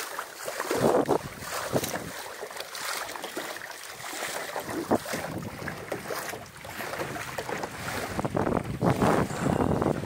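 Water splashing and rushing along the hull of a small sailing dinghy under way, with wind buffeting the microphone. It grows louder in the last couple of seconds.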